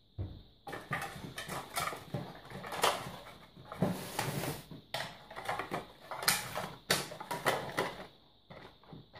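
Plastic frames of an Apidea mating box being fitted together and pushed into its polystyrene box: a busy run of clicks, knocks and scraping that dies down near the end.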